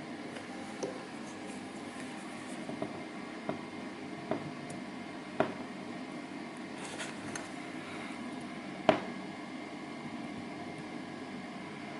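Light, scattered clicks and taps of small tools handling a watch hand on the movement, over a steady background hum. The sharpest tap comes about nine seconds in.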